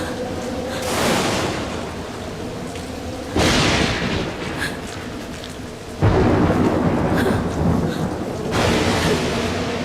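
Thunderstorm sound effects: rolls of thunder over steady rain, with a sudden loud thunder crash a little past the middle.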